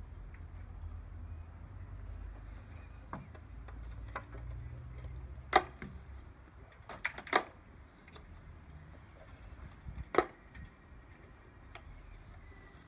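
Plastic and metal clicks and knocks as a Datapath QCT portable satellite dish's folding reflector panels are swung open and locked on their mount, a handful of sharp snaps with the loudest a little past halfway, over a low steady rumble that fades out midway.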